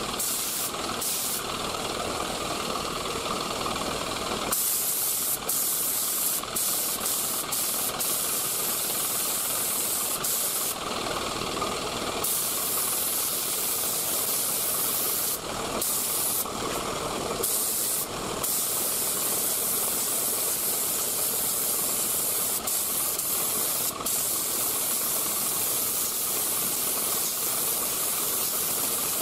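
3M Performance HVLP spray gun hissing as it sprays single-stage urethane paint. The steady rush of air breaks off briefly a number of times, as the trigger is let go between passes.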